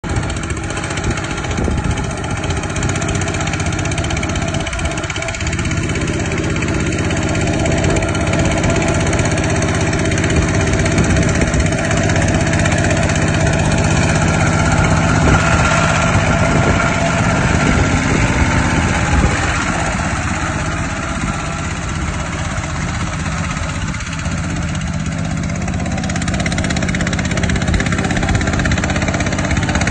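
Bulldozer's diesel engine running steadily as the machine works a rice paddy into mud, swelling a little in the middle.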